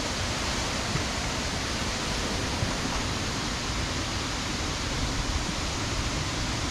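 Steady rush of a rain-swollen waterfall and fast-running beck.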